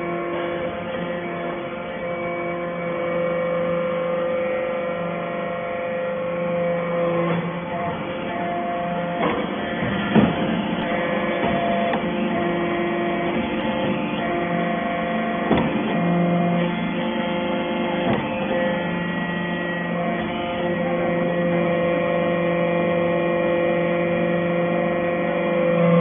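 Hydraulic baler for stainless steel chips running: a steady machine hum with several pitches that swells and eases in stretches, and a few sharp knocks along the way.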